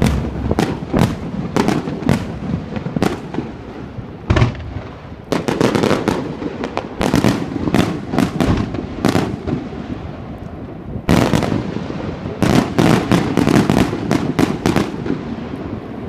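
Aerial fireworks shells bursting in quick succession, a rapid string of sharp bangs and crackles that comes in dense volleys and thins out near the end.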